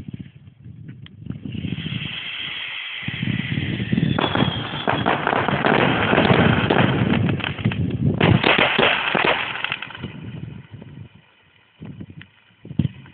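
Fireworks display: a high whistling hiss building up, then a dense barrage of crackling bursts and bangs for several seconds, dying away to a few scattered bangs near the end.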